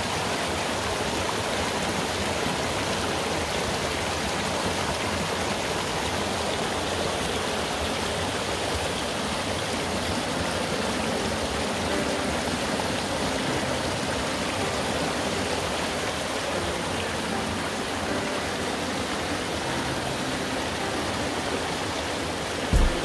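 Mountain stream flowing: a steady rushing of water. A single low thump comes just before the end.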